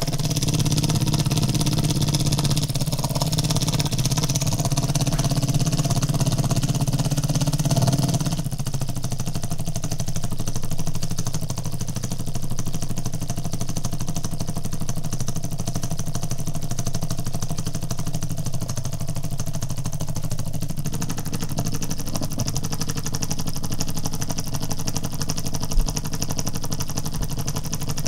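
3D-printed single-cylinder solenoid engine running: the solenoid plunger pulling the crank round in a rapid, steady clatter, held against a box so its body resonates. The tone changes about eight seconds in, losing much of its low hum.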